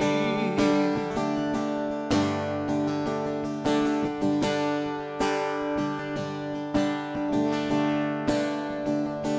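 Instrumental break in a live worship song: acoustic guitar strumming sustained chords, with firm strums about every second and a half and no singing.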